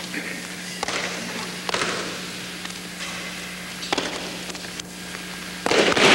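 Thuds and slaps of bare feet and bodies on a mat during aikido throws and breakfalls, a few sharp hits over a steady low hum. Near the end comes a louder rushing crash.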